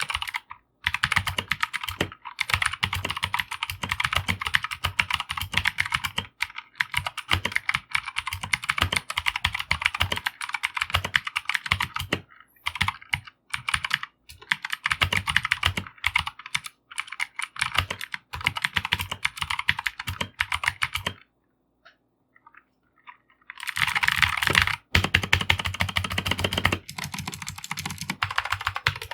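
Fast typing on a Keychron K2 version 2 mechanical keyboard with a plastic case: a dense, continuous clatter of key presses that stops for about two seconds past the twenty-second mark, then starts again.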